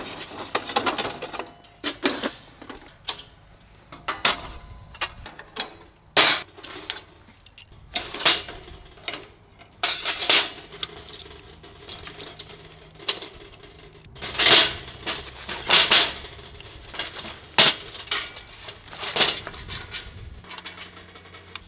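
Aluminium camp-table frame and wooden panels being assembled by hand: irregular clicks, clacks and knocks of metal and wood parts being set and fitted, with louder clattering about two-thirds of the way through.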